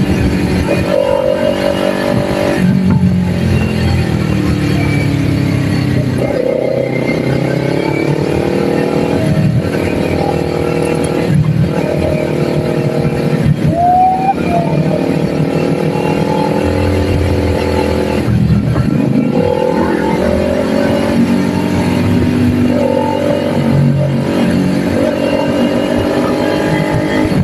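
Kawasaki Ninja 400 parallel-twin engine under way, its pitch climbing repeatedly and dipping briefly at each gear change.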